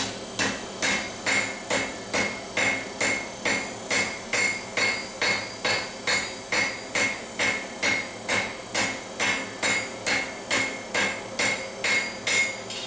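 Hand hammer striking a red-hot steel bar on an anvil, in steady blows about two a second, each with a short metallic ring, stopping just before the end.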